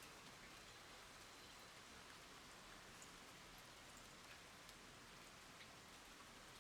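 Light rain falling on wooden boards and a rippling water surface: a faint, steady hiss with scattered separate drops ticking.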